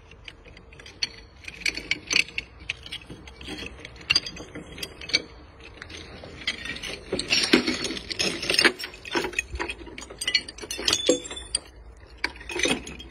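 Broken window glass being picked out of a wooden frame by hand: shards clinking, scraping and snapping against each other and the sill. There are many quick clinks, with a dense flurry about seven to nine seconds in and another near the end.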